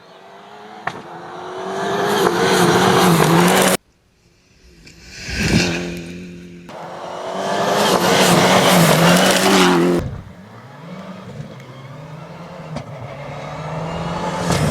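Rally cars passing at speed on a gravel stage, their engines revving up and down through the gears as each one approaches and goes by. The sound comes in several short takes with abrupt cuts, about four seconds in and again about ten seconds in.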